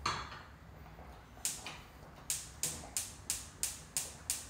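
Gas cooktop's spark igniter clicking steadily, about three clicks a second from about a second and a half in, while the burner is being lit. A short clatter at the very start as the pan is set on the grate.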